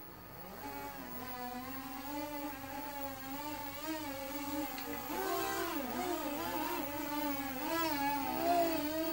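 The two small electric motors and propellers of a homemade helium-balloon RC blimp buzzing in flight, the whine wavering up and down in pitch as the throttle changes and growing louder over the first few seconds.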